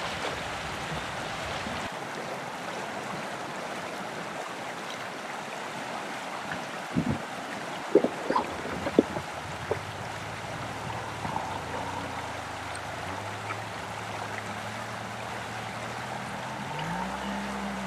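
Steady rushing of a flowing stream, with a few sharp knocks about seven to ten seconds in. A low steady hum comes in around ten seconds and rises in pitch near the end.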